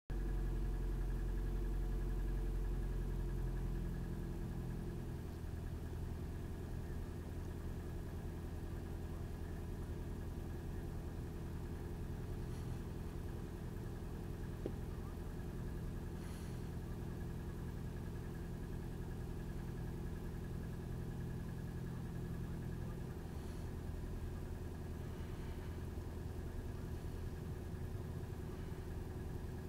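Nissan March (Micra) engine idling steadily, a little louder for the first few seconds before settling lower. It is making an abnormal noise whose cause the owner does not know.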